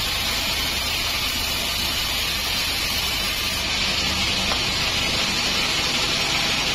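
Sawmill band saw running with a steady hiss, its blade cutting lengthwise through a teak log.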